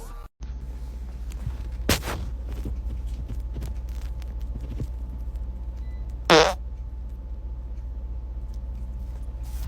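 A short, loud fart about six seconds in, with a shorter sharp sound about two seconds in, over a steady low hum.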